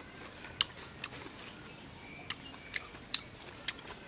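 Wet, sharp clicks of someone eating juicy red grapefruit segments, chewing and handling the fruit, about seven clicks at irregular intervals.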